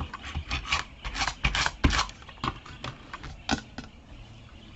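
Paper and card being handled on a work surface: a string of irregular rustles, taps and scrapes, busiest in the first two seconds and sparser after.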